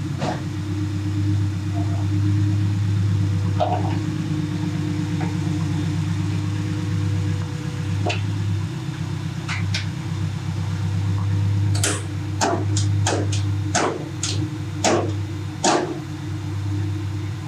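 Honda Civic SiR's B20B VTEC four-cylinder engine idling steadily. About twelve seconds in, a run of sharp clicks and knocks follows as the carbon hood is lowered and pressed shut.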